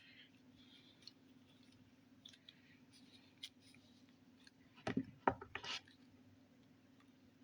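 Hands playing with slime and putty: faint small clicks and rustles over a steady low hum, with a short run of louder knocks and handling noises about five seconds in.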